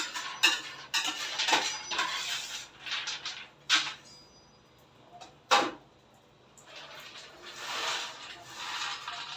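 Roasted peanuts and kitchenware being handled: clattering and several sharp knocks in the first half, then a stretch of rustling near the end.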